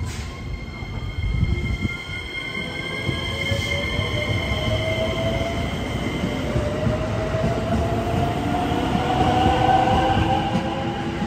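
JR West 225-series electric train departing a station, its wheels rumbling on the rails while the traction motors whine in several tones that rise slowly in pitch as it gathers speed, growing louder toward the end.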